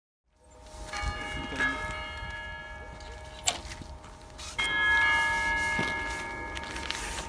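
A bell is struck twice, about a second in and again about three and a half seconds later, each strike ringing on in several steady tones and fading slowly. A few sharp crunching footsteps in snow sound over it.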